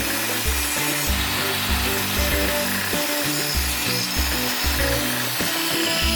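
Continuous rasping of wood being worked with an abrasive or cutting tool, over background music with a regular bass beat.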